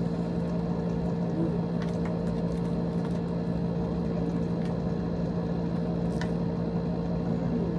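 Steady hum of a small electric fan running, with a few faint clicks and rustles as motorcycle helmets and their plastic wrapping are handled.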